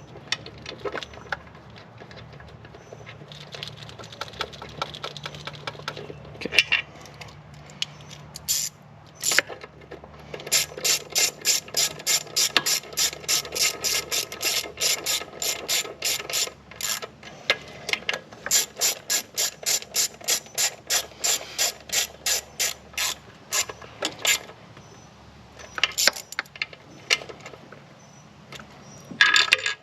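Socket ratchet clicking in two long runs of quick, even clicks as it drives in the 8 mm bolts holding the idle air control valve. There is lighter handling of the parts before and after the runs.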